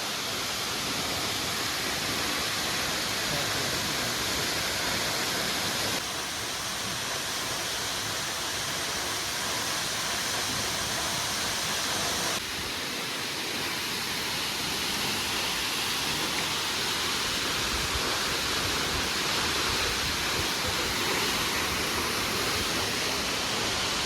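Toccoa Falls waterfall: a steady, even rush of falling water. Its tone shifts abruptly twice, about six and twelve seconds in.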